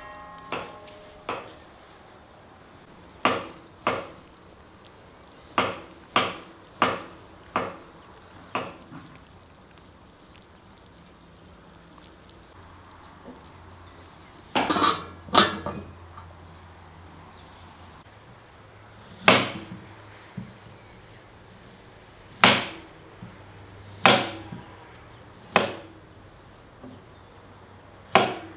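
Sharp knocks and clatters of kitchen work with pots, lids and knives, coming singly or in quick twos and threes at irregular intervals.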